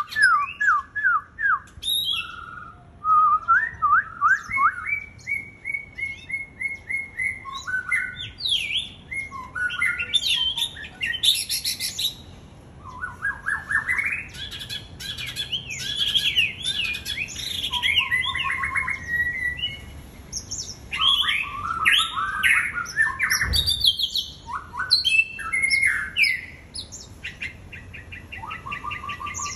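White-rumped shama singing a long, varied song of quick whistled notes, trills and gliding phrases in bursts with short gaps. There is a single low thump about two-thirds of the way through.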